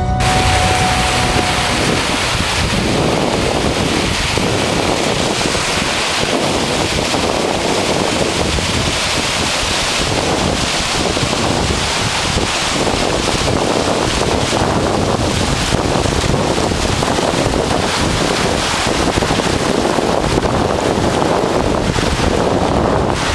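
Mountain stream rushing over rocks: a steady, loud rush of water, with wind on the microphone.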